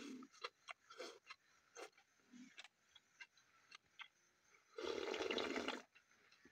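Eating sounds: short smacking clicks, then about a second of loud slurping as snail broth is drunk straight from the rim of a large metal bowl.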